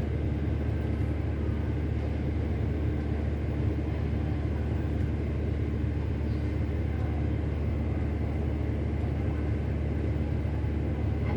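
Steady low mechanical rumble with a faint even hum, unchanging throughout.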